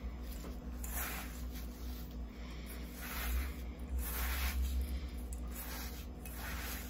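Fingers rubbing butter into crushed biscuit crumbs in a stainless steel bowl: a crumbly rustling scrape that swells and fades about once a second, over a steady low hum.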